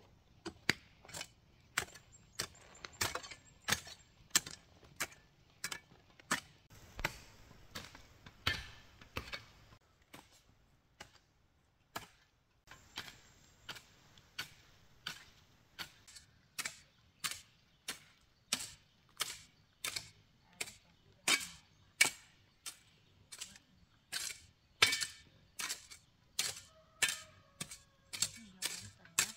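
Hand hoes chopping into loose soil: a steady run of sharp strikes, about two a second, with a pause of a couple of seconds about ten seconds in.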